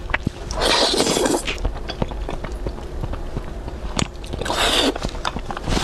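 Thick zhajiangmian noodles slurped into the mouth twice, each a wet sucking rush about half a second long, one about a second in and one near the end, with moist chewing and mouth clicks between.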